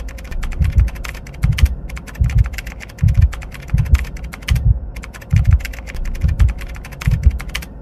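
Computer keyboard typing sound effect: rapid key clicks with two short pauses, over a deep low thump repeating about every three-quarters of a second.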